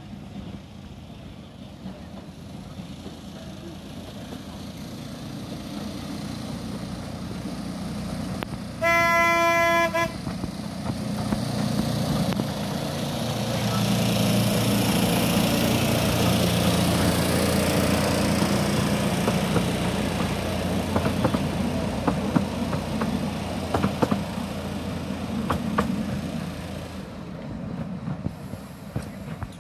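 Miniature railway diesel locomotive approaching and passing close by, its engine and wheels on the rails growing louder to a peak and then fading. It gives one short horn blast about nine seconds in. As it draws away, the wheels click over the rails.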